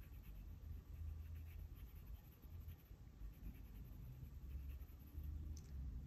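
Faint scratching of a Pentel GraphGear 500 mechanical pencil's 0.5 mm lead on sketchbook paper: short, light hatching strokes over a low background rumble.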